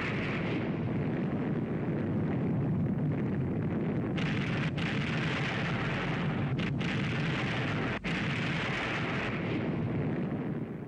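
Disaster-film sound effects of a volcanic eruption and explosions: a dense, continuous rumbling roar, broken for an instant about eight seconds in and fading out at the end.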